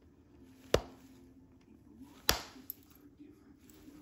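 Flint knapping on heat-treated Flint River chert: two sharp clicks about a second and a half apart as flakes are struck or pressed off the stone, with a faint tick after the second.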